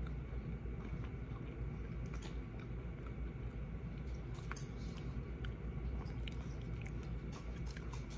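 A person chewing a snack with mouth closed, close to the microphone, with scattered small mouth clicks.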